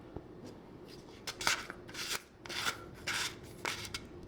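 Short scratchy rasps, roughly one every half second, as the top cover of a push-button spincast reel is screwed onto the reel by hand and its threads rub.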